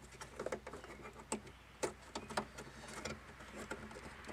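A few sharp clicks and light taps, scattered about half a second to a second apart, from hand tools and plastic dash trim being handled, over a faint steady hum.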